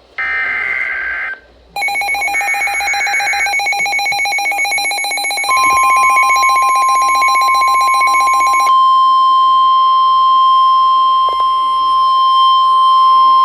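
Emergency Alert System attention tones for a severe thunderstorm warning: after a short tone and a brief gap, a rapidly pulsing, buzzy electronic alarm sounds. About five and a half seconds in a steady high single tone joins it, and it carries on alone once the pulsing stops at about nine seconds.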